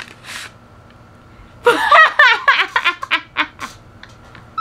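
A brief rustle of a kraft-paper envelope, then a woman bursts into loud, high-pitched laughter about a second and a half in, laughing in quick repeated bursts for about two seconds.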